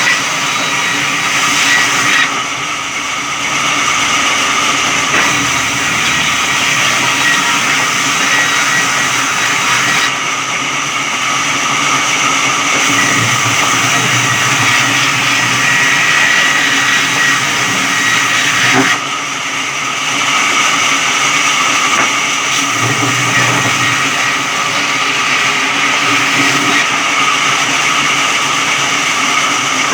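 Electric sawmill running and cutting through a log: a loud, steady machine noise with high steady whining tones, dipping briefly about two seconds in and again past the halfway point.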